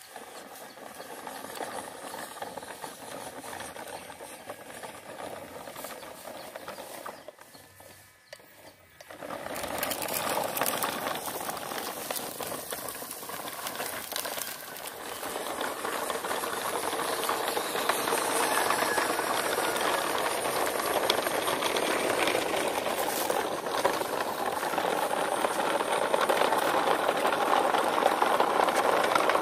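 Small electric motor of an RC pickup truck running as it tows a line of plastic toy trucks, their hard plastic wheels rattling along a rough concrete path. The noise drops away briefly about eight seconds in, then returns louder and grows.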